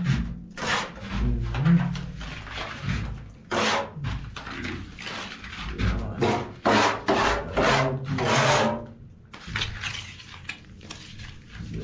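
A plastering tool scraping and rubbing over wet cement render on a ceiling, in a series of irregular strokes each under a second long.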